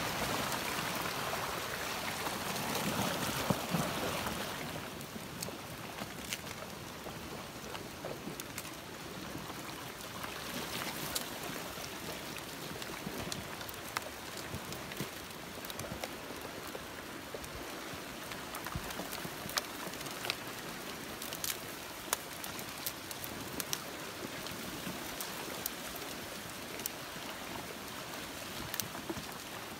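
Woody debris front of a flash flood moving down a dry wash: a steady rushing crackle of tumbling branches and logs, with many sharp clicks and snaps of wood throughout. It is louder for the first four seconds or so.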